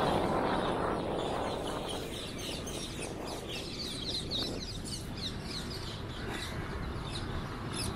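Many birds chirping in quick, short falling calls, thickest in the second half, over the low rumble of a moving vehicle on the road. Louder road and engine noise fades over the first two seconds.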